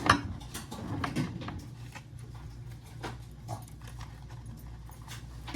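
Dogs' claws clicking and tapping on a hard floor as they move about, with a sharp knock right at the start.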